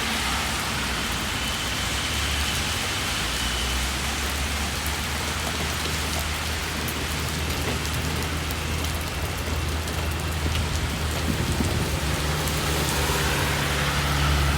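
Steady rain falling and pattering on surfaces, with a low steady hum underneath that grows a little louder near the end.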